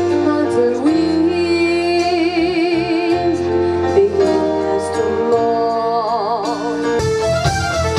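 A woman sings long held notes with vibrato in French-language pop, backed by a live band with electric guitar and drums.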